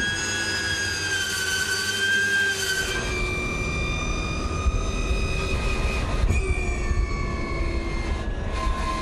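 Ford Mustang Mach-E 1400 electric drift car doing a standing burnout: a steady high whine from its electric motors over the rumble of the spinning rear tyres. The whine steps in pitch about three seconds in and again about six seconds in, and the tyre rumble grows heavier after the first step.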